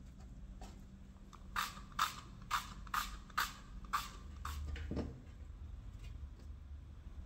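An oil spray bottle being pumped at a baking tray: about six short squirts of hissing spray, roughly two a second, followed by a soft knock about five seconds in.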